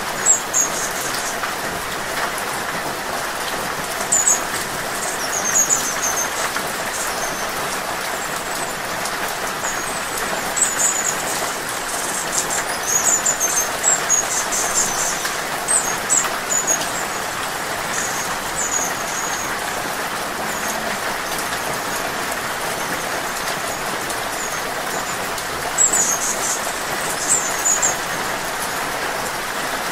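Steady rain falling, with short bursts of very high, thin twittering chirps from a hummingbird that come several times, thickest in the middle and again near the end.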